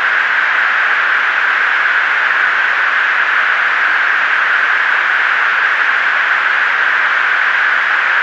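Steady hiss of an aircrew's open cockpit intercom and radio channel, an even band of noise in the middle range with no words.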